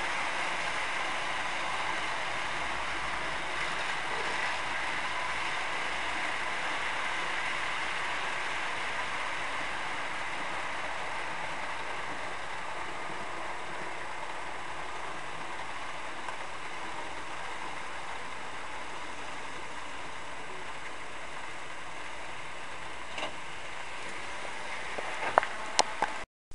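Model train running on layout track: a steady rolling hiss with a faint whine that eases off slowly, and a few sharp clicks near the end.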